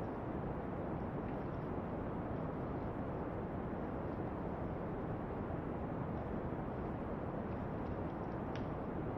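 Steady brown noise, a deep even hiss, with a few faint campfire crackles on top; one sharper crackle comes near the end.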